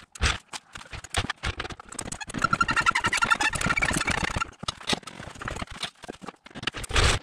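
Sped-up time-lapse sound of hand work on a van's front suspension: a fast jumble of metallic clicks and clanks from tools and parts, growing into a dense chattering rattle in the middle.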